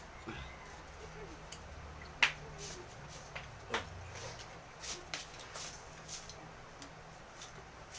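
Sparse eating sounds: small clicks, smacks and taps of chewing and utensils, the sharpest about two seconds in, over a low steady hum.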